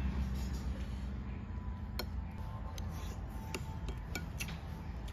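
Metal spoon clinking against a ceramic plate while eating, a few light separate clinks starting about two seconds in, over a steady low rumble.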